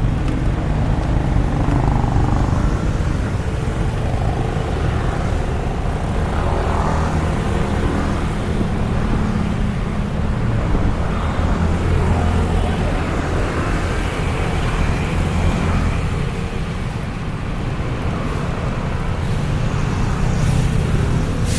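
Steady low rumble of road traffic and wind on the microphone during a bicycle ride, with a couple of short sharp clicks near the end.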